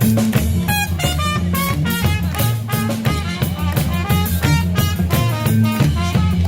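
Live reggae band playing: a trumpet carries a stepping melody over a walking bass line and drum kit.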